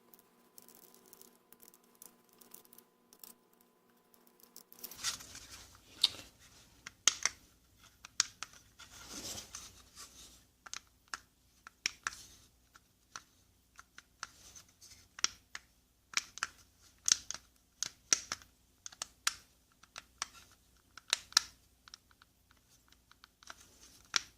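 Irregular sharp plastic clicks and scraping from a car window switch assembly being handled and its buttons or parts worked, starting about five seconds in.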